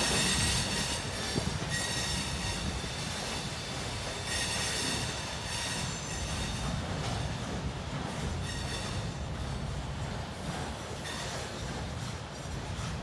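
Freight train of hopper wagons rolling slowly past, its wheels squealing on the rails in high, shifting tones over a low rumble. The squeal is loudest at the start and again about four seconds in.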